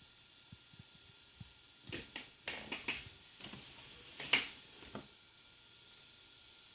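A few light clicks, then a couple of seconds of rustling and scraping handling noises with one sharper click about four seconds in, over a faint steady electronic hum.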